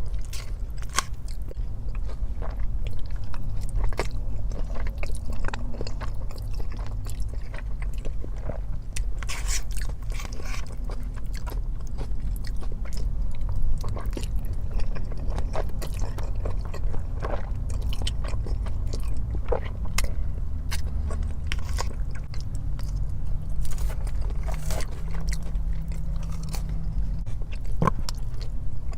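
A person biting and chewing food close to the microphone, with many short sharp clicks and crunches through the chewing, over a steady low hum.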